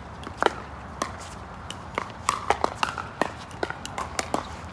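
Pickleball play: sharp pops of paddles striking the plastic ball and the ball bouncing on the court, at irregular intervals, with a quick run of them about two seconds in.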